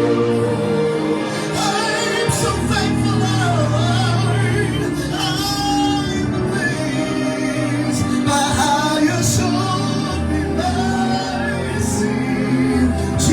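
Worship music with singing: a melodic vocal line over sustained low accompaniment.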